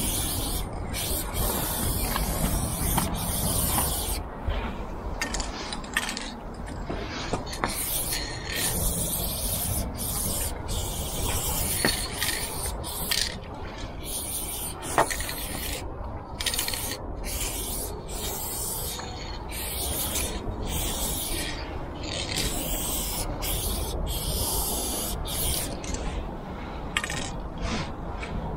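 Aerosol spray paint can hissing in repeated bursts of varying length as lines are painted, with short breaks between strokes, over a steady low rumble.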